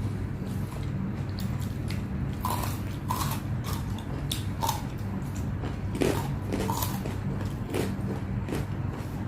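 Close-miked eating: chewing and mouth sounds with irregular short clicks and smacks, over a steady low hum.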